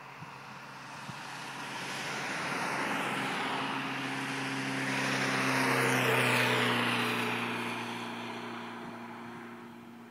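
Chip-tuned Ford Mondeo driving past at speed. Its engine drone and tyre noise build up, peak about six seconds in as it goes by, then fade as it drives away.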